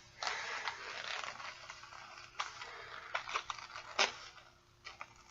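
Packaging and box contents being handled: soft crinkling and rustling with scattered small clicks and ticks.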